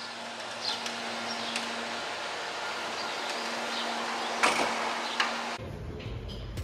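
Steady hiss with a faint low hum, heard from inside a car waiting at the curb, with a brief sharp knock about four and a half seconds in. A little over five seconds in, the sound cuts abruptly to a deep steady bass.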